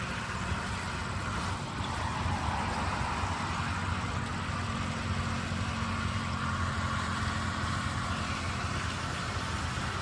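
Heavy truck's diesel engine running steadily under load as the tractor unit drags a disc harrow through ploughed soil. The sound gets a little louder about two seconds in.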